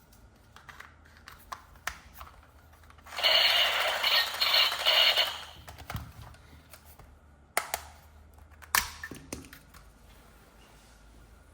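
Scattered clicks and knocks of toys and packaging being handled, with a loud two-second rustling or scraping burst about three seconds in.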